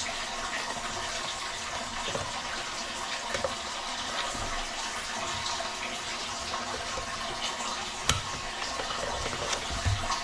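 Water running steadily, with small handling clicks and one sharp knock about eight seconds in.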